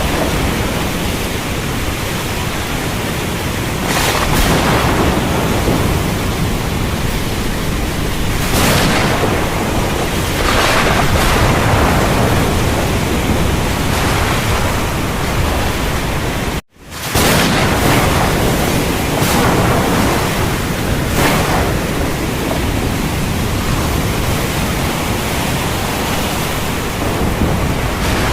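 Heavy rain as a steady rushing hiss, swelling louder every few seconds as gusts come through. The sound cuts out completely for a split second about two-thirds of the way through, then carries on.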